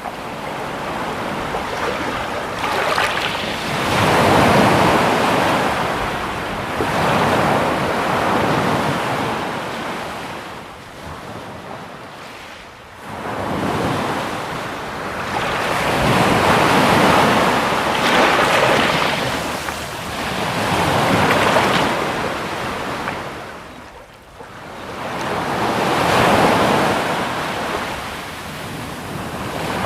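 Sea waves breaking and washing on the shore in slow surges every few seconds, with some wind on the microphone.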